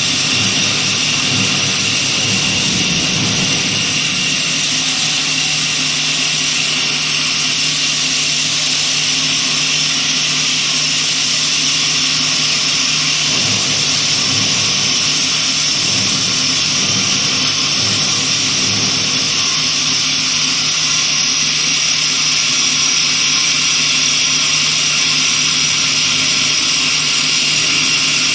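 CNC wood copy lathe running, a steady machine drone with a low hum and a loud high-pitched hiss.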